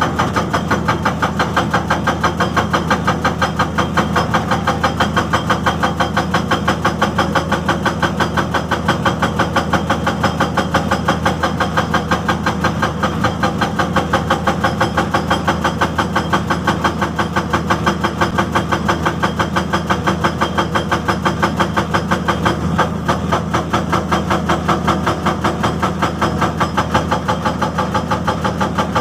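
Excavator hydraulic breaker hammering steadily at about four to five blows a second, with the excavator's diesel engine running underneath.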